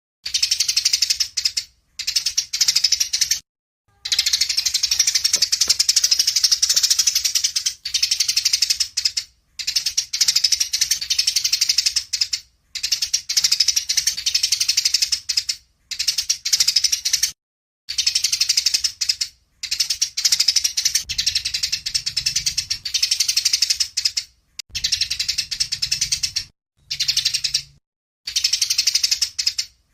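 A songbird singing a fast, dense, high-pitched chattering song in phrases of one to three seconds, each broken off by a sudden silence.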